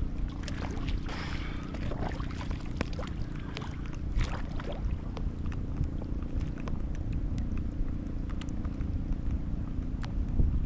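Small fishing boat's engine running with a steady low rumble, with scattered ticks of rain falling.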